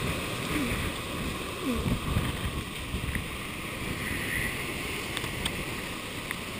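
Typhoon wind rushing past and buffeting the microphone, with a stronger gust about two seconds in.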